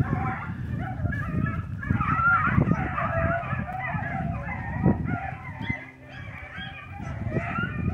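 A large pack of hound puppies baying and yelping together, many voices overlapping without a break, easing off briefly about two-thirds of the way through.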